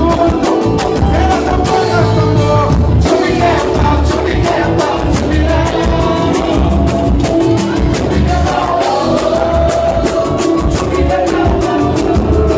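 Live samba band: men singing together over hand drums, a surdo and a metal shaker keeping a steady, fast samba rhythm.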